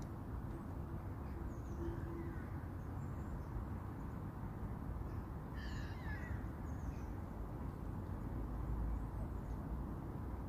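A single crow caw about six seconds in, over a steady low outdoor rumble, with a few faint bird chirps early on.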